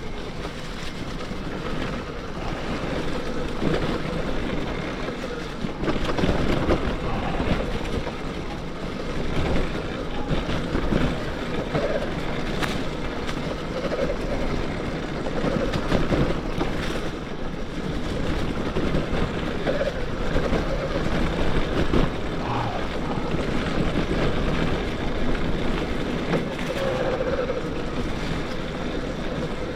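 Wind rushing over the microphone and tyres rolling on a dirt trail while an electric mountain bike is ridden: a steady rushing noise that swells and dips.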